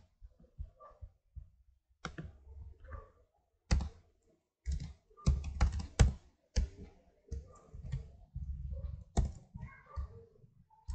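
Typing on a computer keyboard: irregular keystrokes, some much louder than others, with short pauses between runs.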